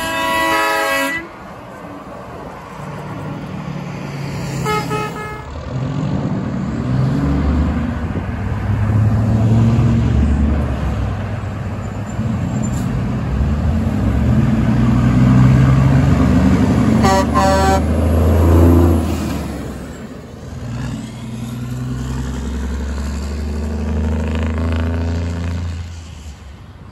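Semi-truck air horns blowing over heavy diesel engine and traffic rumble. A Peterbilt 379's Grover air horn blast ends about a second in, a short faint toot comes around 5 s, and a Kenworth T800W's twin Grover 2000 air horns give a strong blast about 17 s in as the truck passes.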